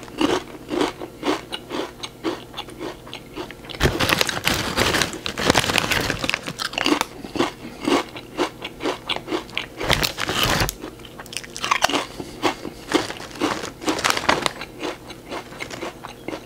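Crunching and chewing of crisp chips close to the microphone, many short crunches in quick succession. Longer, louder stretches of rustling about four seconds in and again about ten seconds in, as the foil chip bag is handled.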